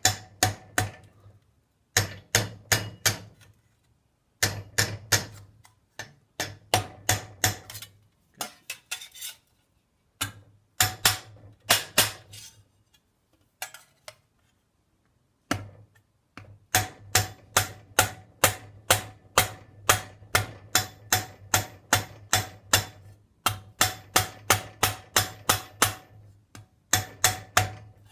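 Rubber mallet striking annealed 22-gauge stainless steel sheet against a steel forging stake, in quick runs of blows about three a second with short pauses between runs and a longer pause about halfway through. These are drawing blows, swept across the surface to pull the sheet down and forge a hard edge along its perimeter.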